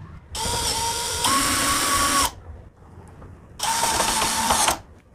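Cordless drill-driver driving the screws of a door lock's latch faceplate into the door edge: two runs of motor whine, the first about two seconds long and stepping up slightly in pitch partway through, the second about a second long.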